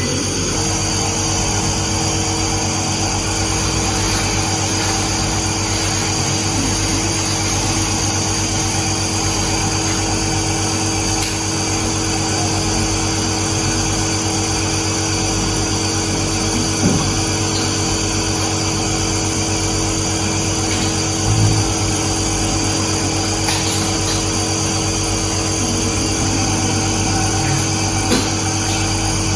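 Compressor nebulizer's pump motor running with a steady hum, with a couple of small knocks partway through.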